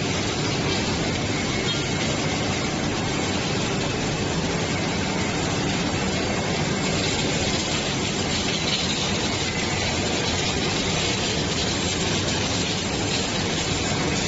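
Steady, even hiss and hum of an automatic surfacing welding machine at work on a continuous casting roll.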